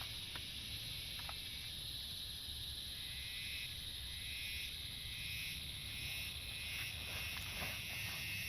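Steady rain hiss with a low rumble underneath and a few faint drip ticks.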